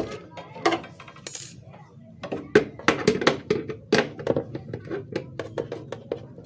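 Rapid, irregular metal-on-metal taps and clinks with a short ring, from a seized refrigerator compressor's steel shell being knocked to free it.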